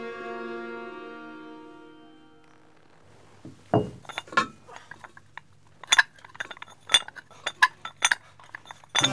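Background music fading out, then metal dumbbell plates clinking and knocking irregularly as a pair of plate-loaded dumbbells is lifted, with a heavier knock about four seconds in.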